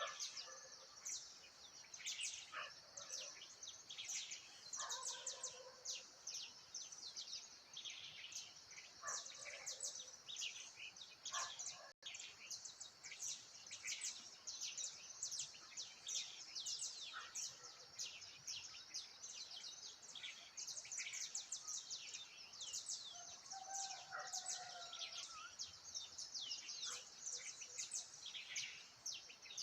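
A dense chorus of many birds in the bush, with rapid overlapping high chirps throughout over a steady high-pitched hiss. Occasional lower calls stand out, one drawn-out call coming about 24 seconds in.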